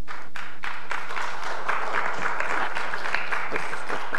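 Congregation applauding and laughing in reaction to a joke's punchline. The noise swells about half a second in and is still going at the end.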